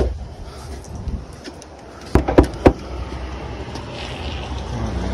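Three quick knocks on a front door, over a steady low rumble.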